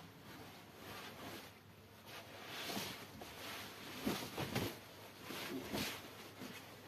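Silk saree fabric rustling and swishing as it is unfolded and shaken out flat, with a few sharper flaps about four to six seconds in.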